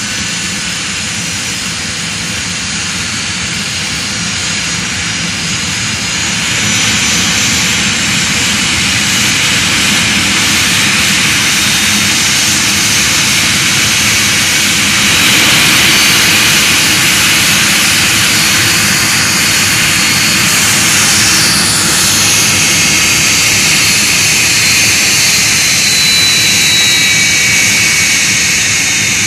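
Jet dragster's turbine engine running with a loud roar and a high-pitched whine. It gets louder about seven seconds in and stays loud through the rest.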